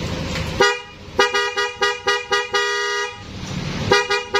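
Aftermarket Denso horn being tested with a string of short honks, a longer honk of under a second, and then two more short honks near the end. Two tones sound together.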